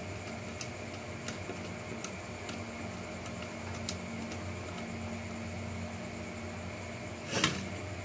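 Small precision screwdriver turning a screw into a plastic chassis mount, with a few faint clicks over a steady background hum. Near the end comes one brief louder knock as the plastic-and-metal frame is handled.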